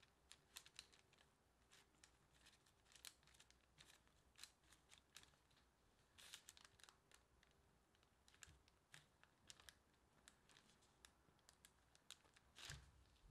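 Faint crinkling and soft clicks of a plastic dough scraper and gloved hands against parchment paper while the scraper scores soft dough and presses the cut open. A louder rustle with a soft thump comes near the end.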